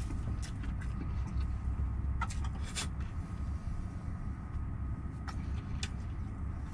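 A steady low engine rumble, with a few short crisp crunches of fried chicken being chewed, about two to three seconds in and twice more near six seconds in.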